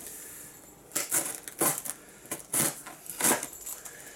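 Cardboard box and its packaging being handled while it is opened: several short scraping, rustling noises with brief pauses between them.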